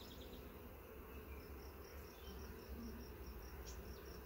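Honeybees humming quietly around an opened nuc box. A high, even chirping of short notes, about three a second, runs over it from about a second and a half in.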